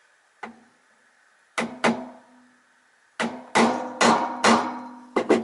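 A series of about eight sharp metallic knocks, each leaving a short ring, as a bearing is tapped onto the end of a Henry vacuum cleaner motor's armature shaft.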